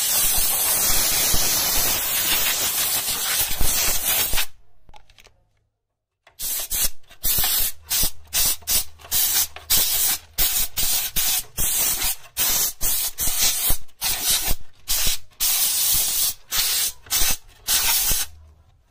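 Vapodil dry-steam cleaner jetting steam: one continuous hissing blast of about four seconds, then after a short pause a long run of quick bursts, about two a second, as the trigger is pulsed.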